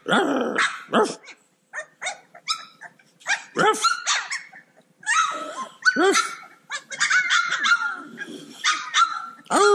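A litter of three-week-old Cane Corso puppies yipping and barking over one another in quick, high-pitched calls. A longer, drawn-out howl starts near the end.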